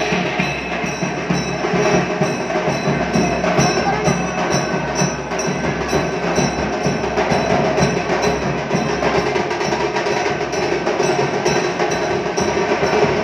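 Dhol drums played in a group, loud and continuous, with sharp strokes in a steady rhythm.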